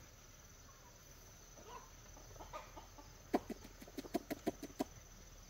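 Domestic chickens clucking: a few soft calls, then a quick run of about nine sharp clucks over a second and a half in the second half.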